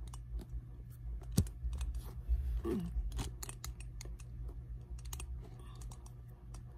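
Handling noise from the recording phone being adjusted by hand: scattered taps and clicks of fingers on the phone and its mount, the sharpest about a second and a half in, over a low rumble of handling.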